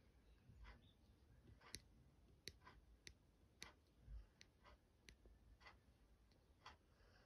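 Near silence with faint, sharp clicks at irregular spacing, about two a second, as a finger taps and scrolls the touchscreen of an Oppo Watch Free smartwatch.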